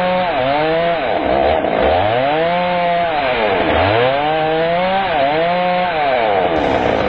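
Chainsaw cutting wood: the engine runs at high revs and drops in pitch several times as the chain bites, recovering each time.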